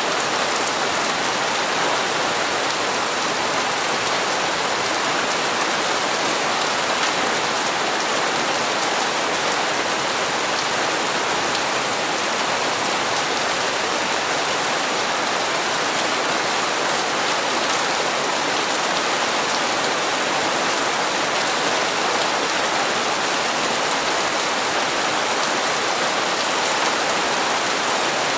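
Steady heavy rain falling on hard surfaces, an even hiss of drops that does not change.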